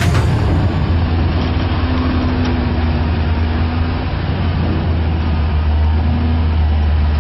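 Diesel engine of a wheel loader running steadily, a loud low drone, with a higher tone that comes in for a few seconds from about a second in and briefly again near the end.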